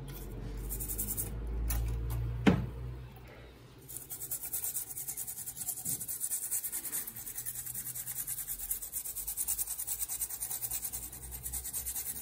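A small brush scrubbing a wet graphics-card circuit board in soapy water: rapid back-and-forth strokes at about four to five a second from about four seconds in. Before that, a low handling rumble and one sharp knock.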